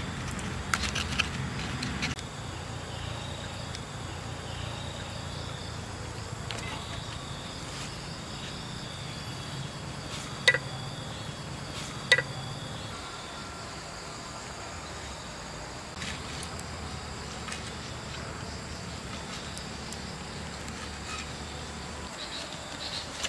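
Steady high insect chirring, with a low hum underneath that fades about halfway. In the first two seconds a stone pestle grinds and clicks against a clay mortar, and two sharp knocks come near the middle.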